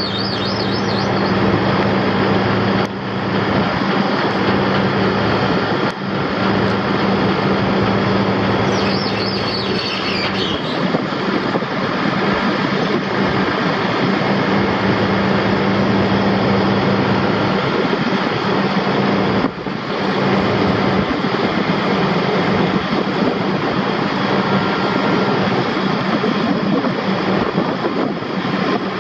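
Heavy diesel truck engine, the crane truck's 12.7 L Detroit Diesel Series 60 six-cylinder, running steadily with a constant low hum under dense mechanical noise. A brief high wavering squeal comes about nine seconds in.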